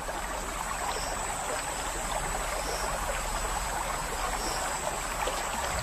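River water lapping and trickling around a crocodile as it moves through the shallows: a steady wash of water.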